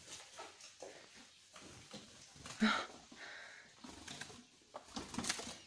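Faint scattered taps and flutters of a small bird trapped in a glassed-in porch, beating against the window glass. There is one short louder sound about two and a half seconds in.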